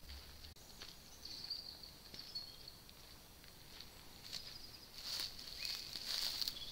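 Small birds chirping and trilling in the trees, with a few footsteps crunching on dry leaf litter in the second half.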